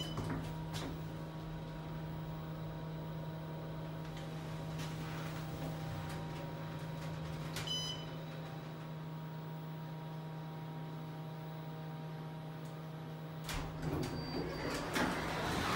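2007 Otis hydraulic elevator in motion: a steady hum in the car, with a short electronic beep at the start and another about eight seconds in. The hum stops about two seconds before the end, followed by clicks and knocks as the car stops and the single-slide door opens.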